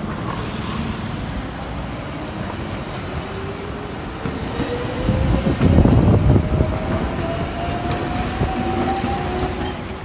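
Kumamoto City Tram 5000-series articulated streetcar passing close by. It is loudest with a low rumble about five to six and a half seconds in, and a whine rises steadily in pitch as it picks up speed, over steady road-traffic noise.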